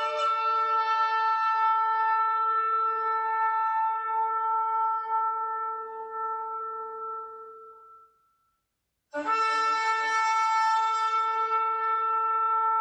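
Shofar blown in long, steady blasts. One held note fades out about eight seconds in, and after a brief silence a second long blast starts abruptly.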